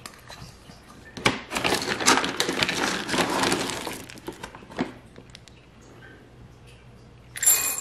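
A plastic bag of dry cat food crinkling and kibble rattling as a measuring cup scoops into it, for about three seconds. Near the end there is a brief bright clatter.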